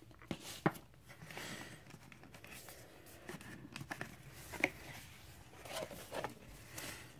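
Cardboard LP jacket and record sleeves being handled: light rustling and sliding with scattered taps and clicks, the sharpest about two-thirds of a second in and again about four and a half seconds in.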